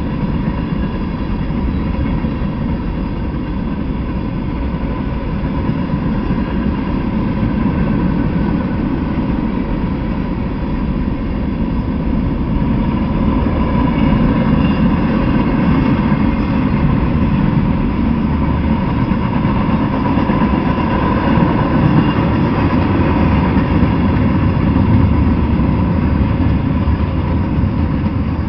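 A freight train's cars, covered hoppers and boxcars, rolling past on the rails: a steady rumble with faint high tones over it. It grows a little louder through the middle and begins to fade at the end as the last car goes by.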